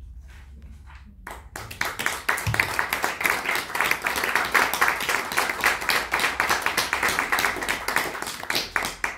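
Audience applauding: a dense patter of many hands clapping that starts about a second in and dies away near the end.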